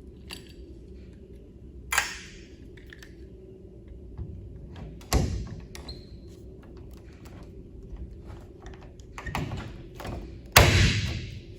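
Blind (pop) rivets being set with a rivet tool: three sharp snaps as the mandrels break, each trailing off briefly, a few seconds apart, with lighter clicks of the tool between them.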